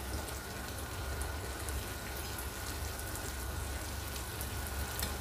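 Unniyappam batter balls deep-frying in hot oil in a multi-cavity unniyappam pan, a steady fine crackling sizzle, as they cook through to golden brown on both sides.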